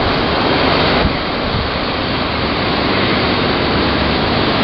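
Steady rushing noise of a Boeing 777's jet engines at low taxi power as the airliner taxies close by.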